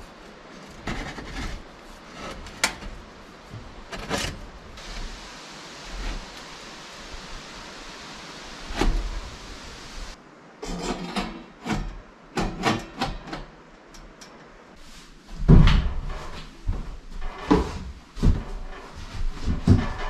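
Irregular knocks, clunks and scrapes of handling and fitting sections of stainless steel chimney flue pipe against a wooden wall, with a stretch of steady hiss in between and a loud thump near the three-quarter mark.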